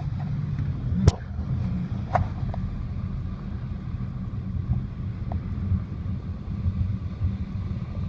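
Car driving, with a steady low rumble of engine and road noise. A sharp click about a second in and a fainter one about a second later.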